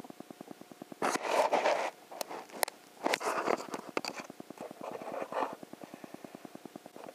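Bursts of rustling and scraping, loudest about a second in and again twice more, over a faint rapid ticking of about ten a second.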